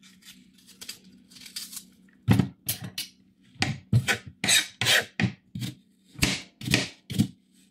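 Kitchen knife chopping fruit on a chopping board: faint peeling scrapes at first, then from about two seconds in a dozen or so sharp chops in an uneven rhythm of roughly two to three a second.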